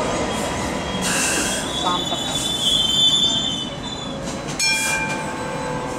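MTR Light Rail vehicles running past at close range, with a steady rumble of wheels on rail. A high-pitched wheel squeal rises from about two seconds in, and a short sharp screech comes near five seconds.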